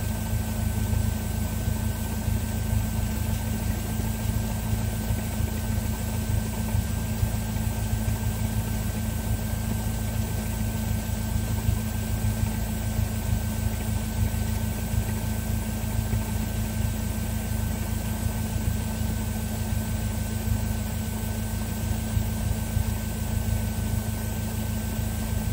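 Cessna 172's four-cylinder Lycoming engine running steadily at low taxi power, with a faint steady high whine alongside.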